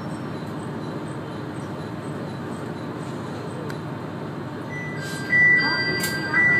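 Diesel railcar running slowly into a station, heard from inside the car, with a steady rumble. Near the end, high steady squealing tones come and go and two sudden loud knocks sound as the train comes to a stop.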